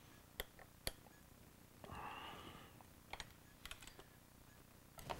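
Faint, scattered light clicks and a brief soft scrape about two seconds in, from a dirt bike's hot start cable and lever being worked loose by hand.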